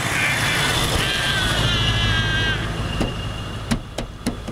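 Traffic passing close by: the rumble and tyre noise of a vehicle going past, with a child's long high-pitched vocal sound over it, followed by a few sharp taps near the end.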